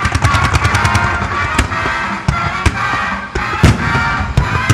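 Fireworks bursting over music: a quick run of sharp pops in the first second, then single loud bursts about once a second, the loudest about three and a half seconds in. Fan-shaped mines and aerial shells are going off in quick succession in a music-synchronised finale.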